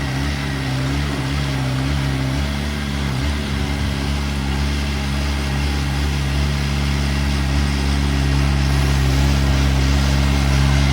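Diesel engine of heavy earthmoving machinery running steadily, growing slightly louder toward the end.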